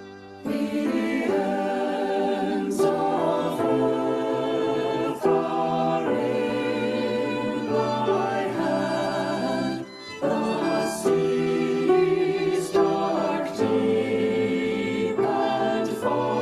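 A choir singing a song; the singing starts about half a second in and breaks off briefly about ten seconds in.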